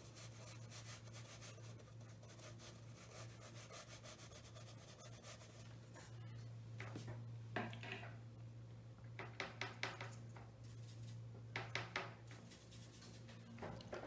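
Flat watercolour brush scrubbing paint onto paper in quick, faint strokes, with a few sharper clusters of brush taps and scrapes in the second half.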